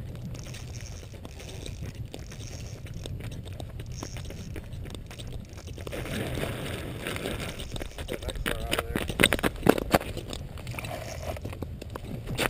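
Low wind rumble on the microphone. From about halfway, crunching, scraping handling noise joins it, with a cluster of sharp clicks a few seconds before the end.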